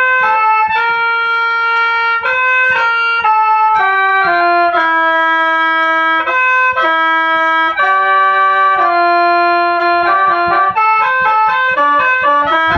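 Khaen, the bamboo free-reed mouth organ of Isan and Laos, playing a melody over held chords of several notes at once, the notes changing every half second to a second.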